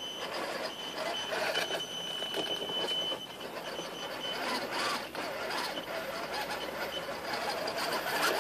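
Electric motor and gearbox of an RC scale crawler whining as it drives up a slope, with dry leaves rustling under the tyres. A thin steady high whine runs through the first half.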